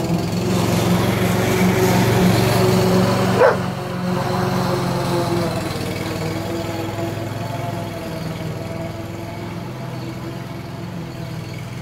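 Briggs & Stratton four-stroke mower engine running steadily, growing quieter as the mower drives away. A dog barks once about three and a half seconds in.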